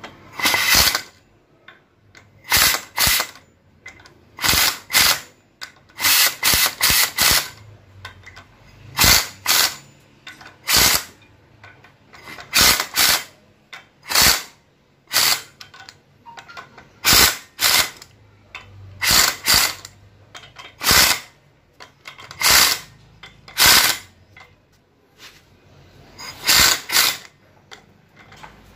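Impact wrench hammering in many short bursts, each under half a second, singly or in quick runs of two to four, every second or two. A bolt is being run tight a little at a time so that it does not break.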